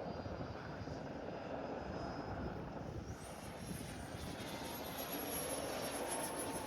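Whine of a 50 mm electric ducted fan on a 3D-printed RC jet in flight. The thin high tone climbs sharply about three seconds in as the throttle opens, then holds high. Wind rumbles on the microphone underneath.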